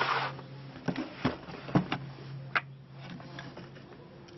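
Cast resin orgonite pieces being handled and set down on a metal baking tray: a short scraping rustle at the start, then four or five separate hard clicks and knocks spread over a couple of seconds.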